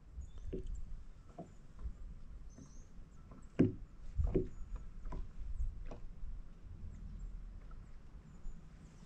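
Irregular soft knocks and taps, about seven of them, the loudest a little over a third of the way in, over a low steady rumble.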